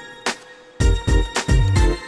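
Background music with a drum beat and heavy bass; it thins out to a near pause in the first second before the beat comes back in.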